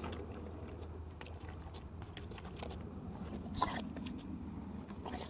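Staffordshire Bull Terrier panting and making mouth noises close to the microphone, with small clicks and one louder short burst about three and a half seconds in.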